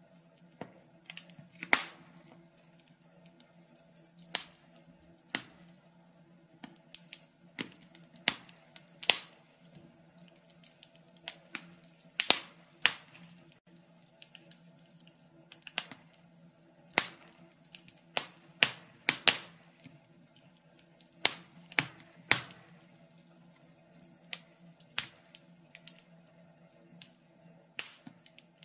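Wood logs burning in a fireplace, crackling with irregular sharp snaps and pops, some much louder than others, over a faint steady low hum.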